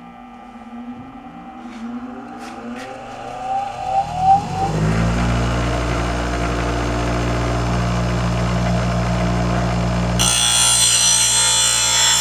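Electric grinder motor spinning up with a rising whine, then running steadily; about ten seconds in, a steel mower blade goes against the wheel and a harsh grinding hiss starts as the blade is sharpened.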